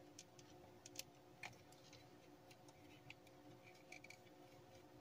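A few faint, scattered clicks and taps of hard plastic as the handlebars of a toy motorcycle are worked onto its front end, which they don't go on well; the sharpest click comes about a second in. A faint steady hum underneath.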